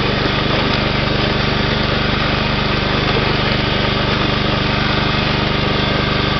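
John Deere 14SE walk-behind mower's small engine running steadily at a constant speed. The owner suspects it needs a carburetor overhaul or a new jet.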